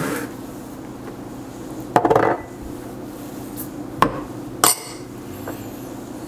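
Small glass prep bowls knocking and clinking against the mixing bowl and each other as ingredients are scraped out with a silicone spatula: a few separate knocks, the loudest about two seconds in, and a sharp clink with a brief ring a little past the middle, over a steady low hum.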